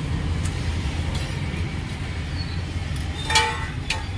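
Steady low rumble of street traffic, with one short ringing clink of a steel spoon against a steel chutney pot about three seconds in.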